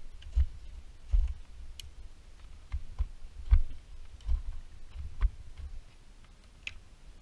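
Climbing gear and footsteps of a climber moving over glacier ice and rock: irregular clicks and knocks, each with a dull thump, growing sparser near the end.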